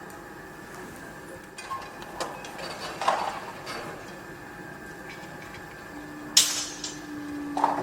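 Construction-site noise: scattered metal clinks and knocks over a low background hiss, with one sharp, loud clang about six and a half seconds in. A steady low hum starts about six seconds in.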